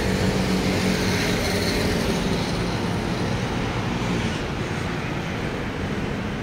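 City road traffic: a steady wash of passing car engines and tyres, easing off slightly over the last couple of seconds.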